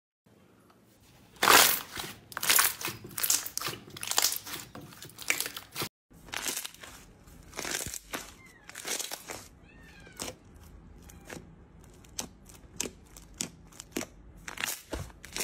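Slime pressed by hand through a wire grid, making loud wet crackling and popping; about six seconds in it gives way to yellow slime being squeezed and poked, with sparser sticky pops and clicks.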